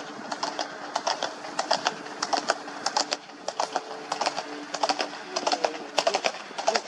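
Hoofbeats of several horses on a hard road surface: a quick, irregular run of sharp clicks as the group passes.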